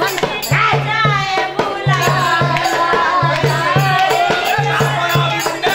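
Women singing a folk song together to a hand drum beating a repeating pattern of low strokes, with hand claps.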